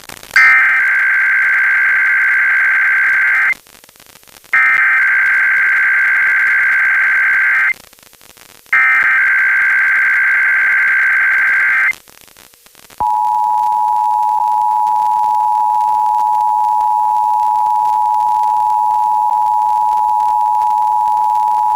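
Emergency Alert System tones opening a Required Weekly Test: three screechy digital SAME header data bursts of about three seconds each, a second apart, then the steady two-tone EAS attention signal held for about nine seconds and cut off at the end.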